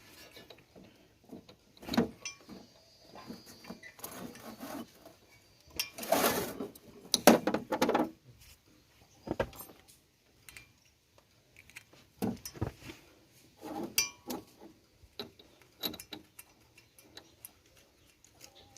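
Metal hand tools clinking and knocking on a car's front brake hub while the Torx T40 screw holding the brake disc is undone, with a louder rasping burst about six seconds in.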